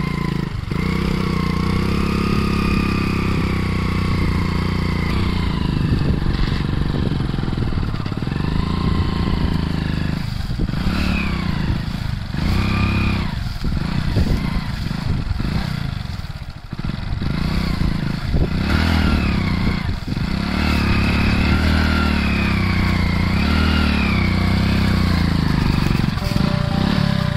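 Motorcycle engine revving, the revs rising and falling repeatedly and dropping back several times in the middle, as the bike strains against the plastic stretch wrap that holds its front wheel from turning.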